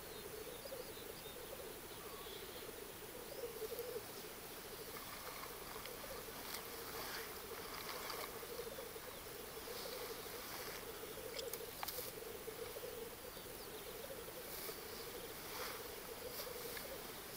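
Black grouse cocks lekking at a distance: the steady, rolling, dove-like bubbling song of several males carries on without a break, with a few short noisy bursts over it.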